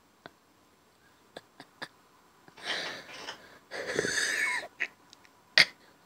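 African grey parrot vocalizing: a few soft clicks, then two breathy, hissing sounds about a second each, the second with a falling whistle in it, and a sharp loud click near the end.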